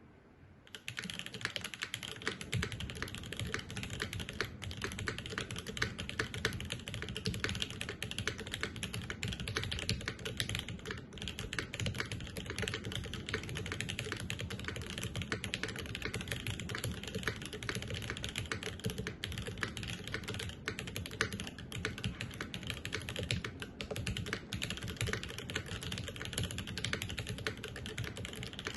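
Continuous fast typing on a custom mechanical keyboard with lubed, filmed linear switches (NovelKeys Dry Yellows) on a plastic plate, a steady stream of muted, deep key clacks beginning about a second in.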